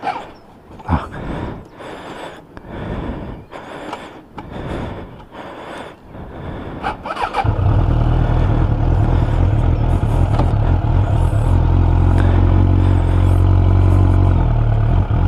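Suzuki Bandit 600 motorcycle's inline-four engine, restarted after stalling, catches about halfway through and runs steadily. Before that there are a few seconds of scattered knocks and rustling.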